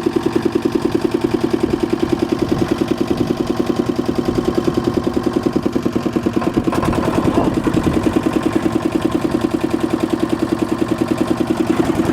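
Engine of a construction machine running steadily at idle, with an even, rapid throb of about seven pulses a second.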